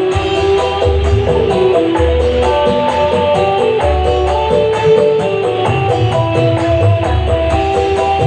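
Music played over a large sound system: a melody over heavy bass notes, with a steady ticking percussion beat.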